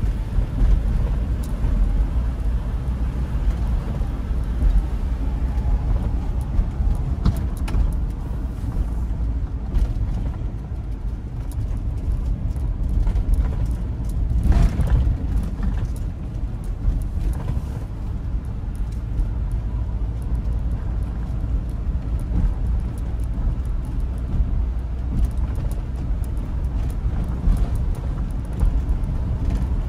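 Car driving, a steady low rumble of road and engine noise.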